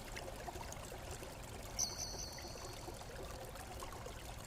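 Soft, steady hiss like trickling water, with a brief high whistling tone about two seconds in.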